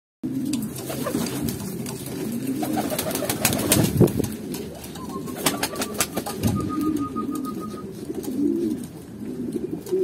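Pomeranian pouter pigeons cooing, several deep, overlapping coos that rise and fall. Scattered sharp clicks run through the middle, with a louder knock about four seconds in.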